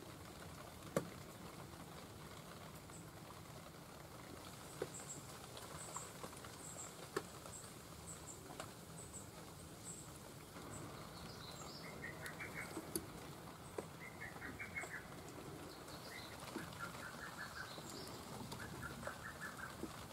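Faint scattered clicks and taps of small parts being handled, with birds in the background: short high chirps from about a quarter of the way in, then repeated trills from about halfway on.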